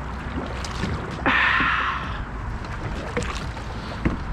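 Canoe paddling on a river: a paddle stroke swishes and splashes through the water about a second in, with a few light knocks, over a steady low rumble of moving air and water.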